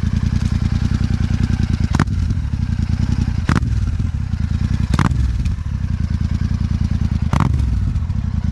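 Royal Enfield Super Meteor 650's parallel-twin engine idling with an even, pulsing beat through a Rhino Racing aftermarket exhaust. The throttle is blipped four times, each blip opening with a sharp crack and the last three swelling briefly louder.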